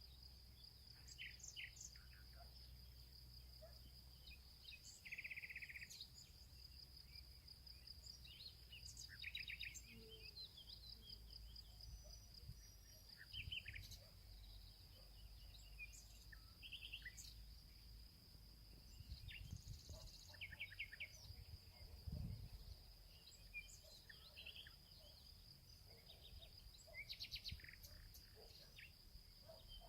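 Faint outdoor ambience: a steady, high, pulsing insect trill runs throughout, with scattered short bird chirps over it.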